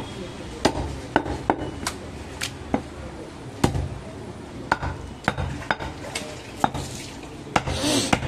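Large butcher's knife cutting through a goat leg on a wooden chopping block, the blade knocking sharply and irregularly against the wood about twice a second. A short hiss near the end.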